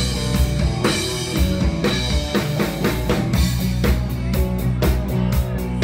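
Live rock band playing, with a drum kit keeping a steady beat over bass and guitar.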